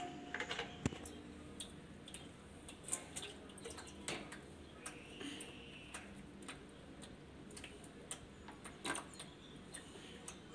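Faint drips and small splashes of soapy water with scattered light knocks and clicks, from a metal pipe stirred in a plastic bucket and a plastic dipper being handled.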